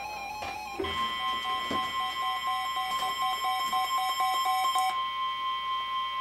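NOAA Weather Radio warning alarm, a steady 1050 Hz tone, starting about a second in and holding on. Under it a receiver's own alert beeps pulse about two or three times a second and stop about two-thirds of the way through.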